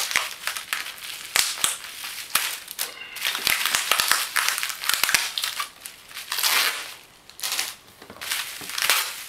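Packaging being handled: plastic and packing material crinkling and crackling, with many sharp clicks and snaps.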